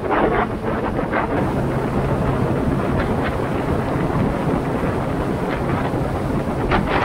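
Wind buffeting the microphone and the rush of wake spray from a small boat running at speed, with the boat's engine humming steadily underneath. The wind gusts up at the start and again near the end.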